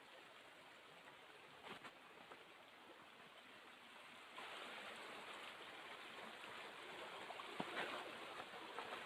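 Faint steady rushing of flowing stream water, growing a little louder about halfway through, with a few soft knocks.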